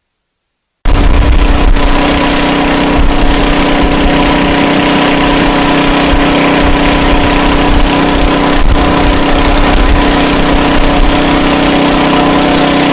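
An engine running steadily at a constant speed, cutting in abruptly about a second in.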